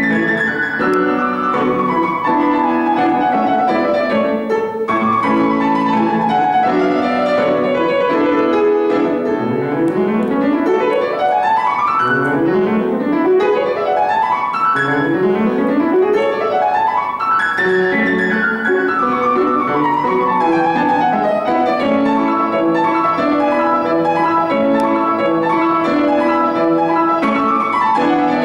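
Solo grand piano playing classical music, with fast scale runs sweeping down and up the keyboard over lower notes.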